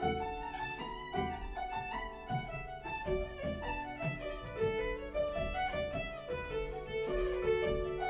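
Fiddle and harp playing an Irish traditional tune together, a busy melody of quick, steady notes.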